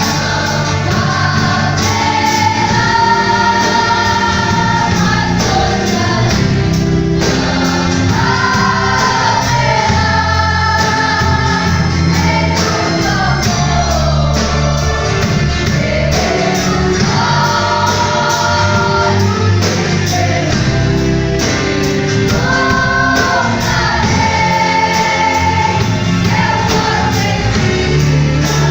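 Church youth choir singing a gospel song in several voices over a steady band accompaniment.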